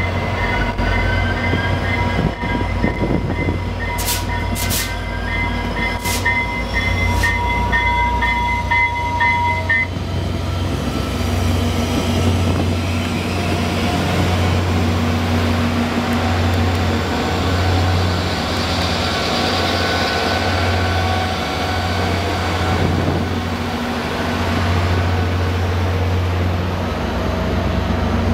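VIA Rail F40PH-2 diesel locomotives and stainless-steel passenger cars rolling slowly past at a station stop, with a steady low engine rumble and wheel noise. For roughly the first ten seconds there is a high, evenly repeated ringing and a few sharp clicks, then the sound of the cars rolling by.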